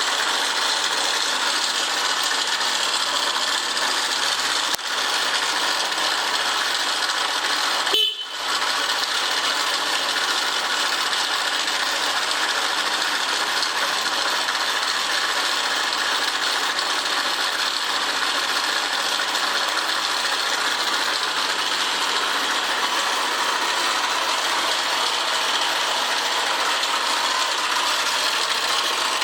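Honda Press Cub 50 PGM-FI's small air-cooled single-cylinder four-stroke engine running steadily, with a short break about eight seconds in. The bike is listed as having abnormal engine noise.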